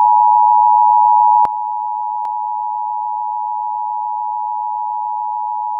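Emergency Alert System two-tone attention signal: two tones sounded together (853 and 960 Hz), steady and harsh, announcing an alert message. About a second and a half in it drops in level with a click.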